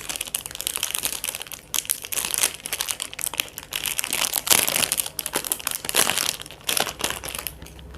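Packaging crinkling and rustling in irregular crackles as it is handled and opened to get at a pair of earrings. It is loudest around the middle and eases off near the end.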